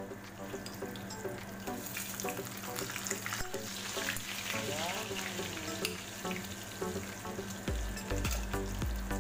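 Tortang dilis (anchovy omelette patties) sizzling and crackling in hot oil in a frying pan, with a spatula working a patty in the pan about four seconds in. A few low bumps come near the end.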